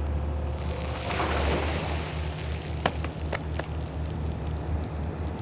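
A bucketful of water pouring from an excavator bucket and splashing onto the gravel and the drive, over the steady low drone of the excavator's engine running. A few sharp clicks follow about three seconds in.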